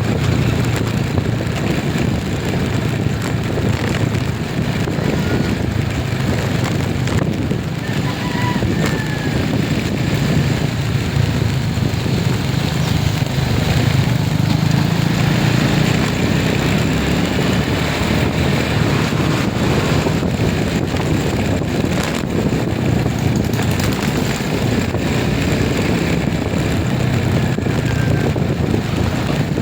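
A vehicle running steadily along a road: a constant low engine hum with road and wind noise.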